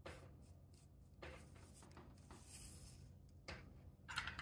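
Near silence: faint room hum with light rubbing and handling noises, and a few sharper clicks near the end.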